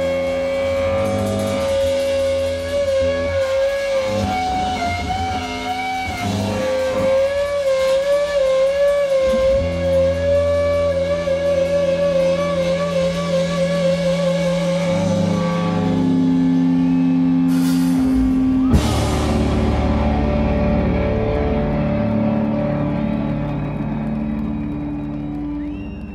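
Live rock band playing the end of a song: electric guitar holding long wavering notes over a low bass drone. A sharp hit comes about two-thirds of the way in, then the chords ring on and begin to fade near the end.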